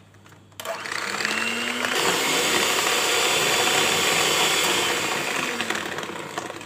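Electric hand mixer beating eggs and powdered sugar in a plastic bowl. It is switched on about half a second in, and its motor whine rises as it speeds up. It runs loud and steady, then slows a little near the end.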